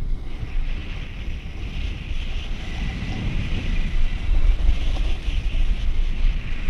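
Wind buffeting a GoPro's microphone at riding speed, a heavy low rumble, over the steady hiss of a snowboard sliding and carving on groomed, packed snow.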